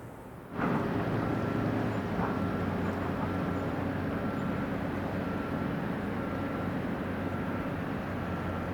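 Steady low drone of a tugboat's diesel engine running, coming in suddenly about half a second in. A faint high beep repeats about once a second over it.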